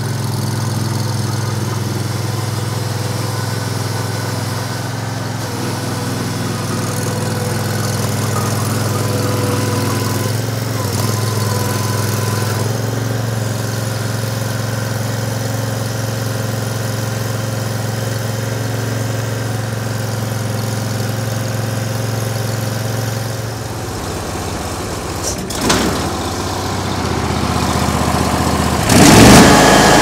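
Jo Beau B37-110 stump grinder's engine running steadily. Near the end the cutter wheel is engaged and spins up, and the sound suddenly becomes much louder and noisier.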